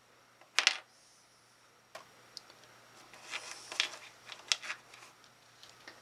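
Small, sharp clicks and taps of plastic and metal from handling small drone parts. There is one loud click about half a second in, then a quick run of lighter clicks a few seconds later.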